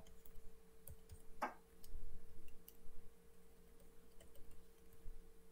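Faint, irregular ticks and taps of a stylus writing on a tablet or touchscreen, a slightly louder one about a second and a half in, over a steady faint electrical hum.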